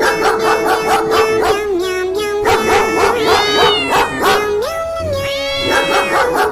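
Dog barking rapidly, with a few high drawn-out yelps or howls, over background music with a held melody note.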